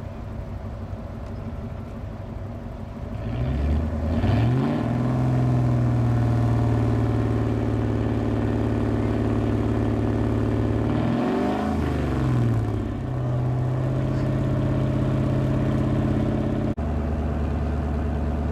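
Heavy diesel truck engine revving up, then running at steady revs, its pitch dipping and climbing again once around the middle. Near the end the sound cuts abruptly to a lower, steady engine sound.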